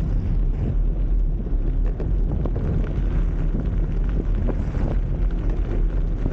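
Steady wind buffeting the microphone of a camera mounted on a moving blokart, over the low rumble of its tyres rolling on asphalt, with scattered small ticks and rattles.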